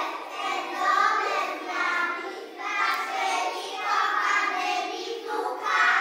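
A group of young children singing a song together in unison, phrase after phrase.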